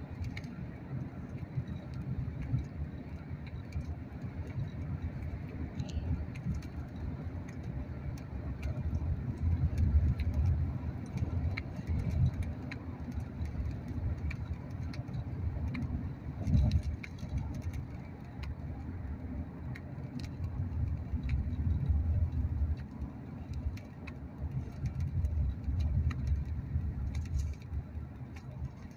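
Low rumble of a car driving along a road, heard from inside the cabin, swelling and easing, with faint small clicks and rattles.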